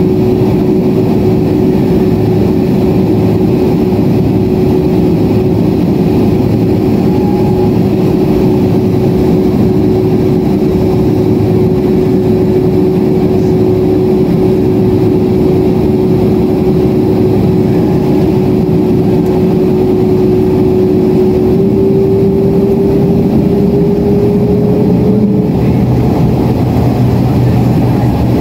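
Boeing 767-400ER cabin noise: a steady loud drone of engines and airflow with a steady hum that rises slightly in pitch about three-quarters of the way through, then stops.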